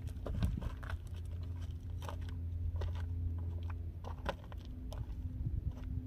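Footsteps crunching and scuffing on dry, stony ground, in an uneven series of crunches over a steady low hum.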